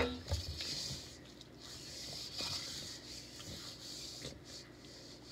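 Soft rubbing and scraping of a hand moving around the inside of a stainless steel mixing bowl, through seasoned raw chicken and loose spices, with a few small knocks against the bowl.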